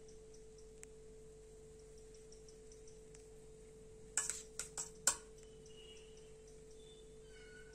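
A metal spoon clinking sharply against a steel bowl four or five times in quick succession about four seconds in, as it scoops potato filling, over a faint steady hum.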